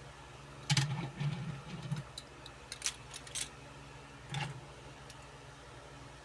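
Diecast toy cars handled and set down on a tabletop: a cluster of low rumbles and light clicks in the first two seconds, a few sharp clicks after that, and one more short rumble a little after four seconds.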